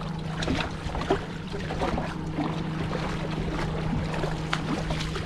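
A steady low hum from the boat, with scattered light knocks and taps throughout.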